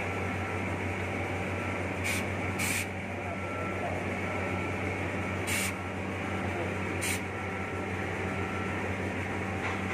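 Oxy-acetylene cutting torch flame hissing steadily, with a low hum beneath and four brief sharp high-pitched sounds.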